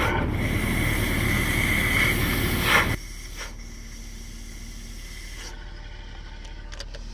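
Porsche 986/996 flat-six engine running with a loud hiss and a steady whistle, the noise of a failing air-oil separator (AOS). The noise stops abruptly about three seconds in, leaving a faint hum and a few light clicks near the end.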